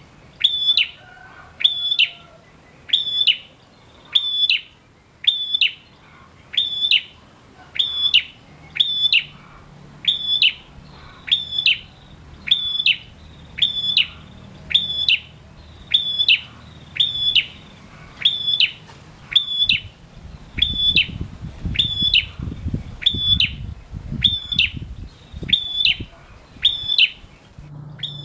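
Caged male prenjak, a small rufous-headed songbird, calling one loud, sharp, high note over and over at a steady pace a little under once a second. A low rumble runs under it from about 20 to 25 seconds in.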